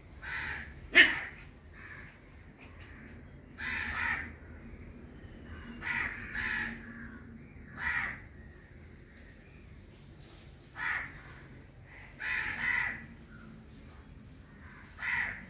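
Crows cawing repeatedly, a harsh call every second or two, with one sharp click about a second in.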